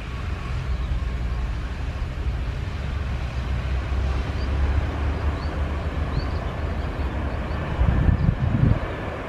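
Lion Air jet airliner rumbling steadily as it rolls down the runway after landing. About eight seconds in, wind buffets the microphone.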